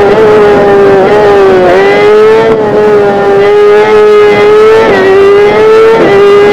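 Kawasaki ZX-10R's inline-four engine running loud at high revs, a steady high note that dips and swings back up briefly about three times.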